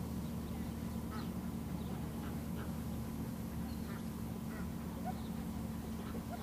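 Ducks quacking in short, scattered calls in the distance, over a steady low hum.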